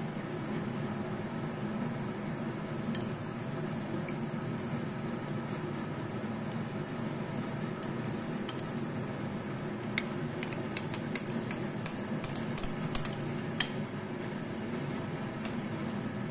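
Metal spoon clinking and scraping against a ceramic bowl as melted cheese is spooned out: a few scattered light clicks, then a quick run of them about ten seconds in, over a steady background hum.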